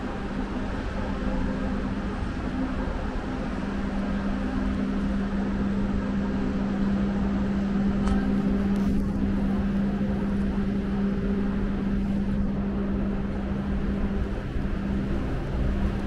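A steady low mechanical hum over a low rumble.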